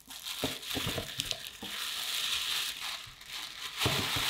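Tissue paper rustling and crinkling as it is pulled out of a paper gift bag, with a few soft handling knocks, the clearest near the end.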